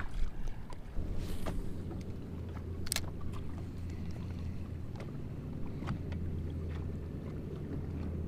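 Boat's electric trolling motor humming steadily from about a second in, with a few light clicks and one sharp click about three seconds in.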